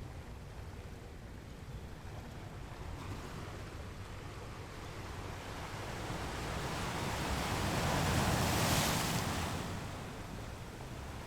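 Ocean waves breaking on rocks: a steady low wash of surf, with one wave building and crashing loudest a little past the middle before falling away.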